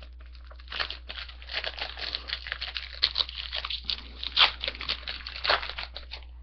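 Foil trading-card pack wrapper crinkling and tearing as it is ripped open by hand, a run of irregular crackles with a few sharper rips.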